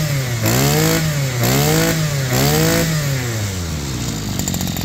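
Small Maruyama brush cutter engine being revved up and down about four times, roughly a second apart, then dropping back to idle near the end.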